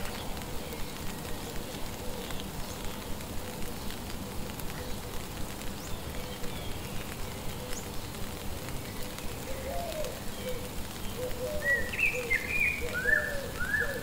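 Rain falling steadily, with a regular tick about twice a second. From about halfway through, a bird gives repeated short low calls, and near the end a louder burst of higher chirping notes.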